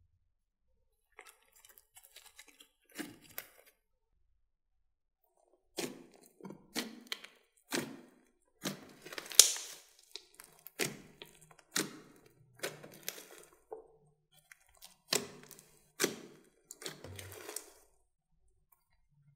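Glossy slime studded with foam beads being pressed and kneaded by hand: a string of sharp wet pops and crackles, about one a second, starting some six seconds in.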